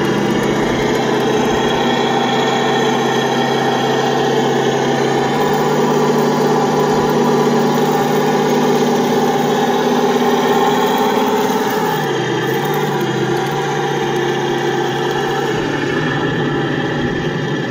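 Simulated tank engine sound from a radio-controlled model Sherman Firefly's sound unit, a steady engine drone through a small speaker. Its pitch steps up about five seconds in and shifts again near the end as the model drives.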